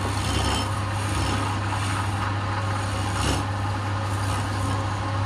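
Wood lathe running with a steady low hum while a hand-held chisel cuts the spinning wooden spindle, a scraping hiss swelling a few times as the tool bites.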